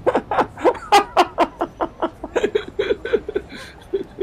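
A person laughing hard in a long run of quick ha-ha pulses, about four or five a second, which trails off near the end.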